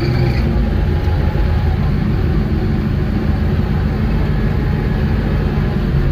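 Engine of a small vehicle running steadily under way, a continuous low-pitched drone.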